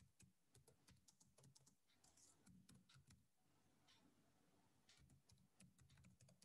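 Faint typing on a computer keyboard: a quick run of keystrokes, pausing for about a second and a half midway, then going on.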